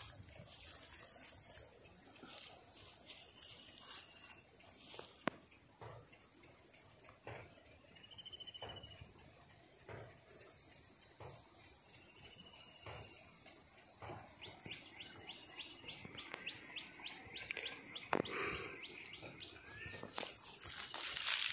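A steady, high-pitched insect chorus, with a few short bird chirps and, partway through, a quick run of ticks.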